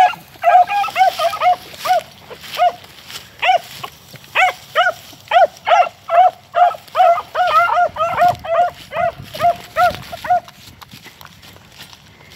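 Beagles baying on a rabbit's trail: a long run of short, pitched barks, about two to three a second, that stops about two seconds before the end.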